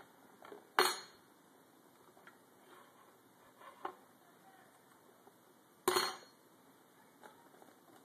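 A metal spoon clinking against the tabletop as a parrot licks it and shifts it with its beak: two loud clinks about five seconds apart, with a few lighter taps between.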